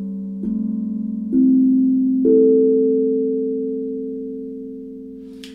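Steel tongue drum struck with wool-covered mallets: three notes about a second apart, soft and muted in tone, ringing over one another and then fading slowly.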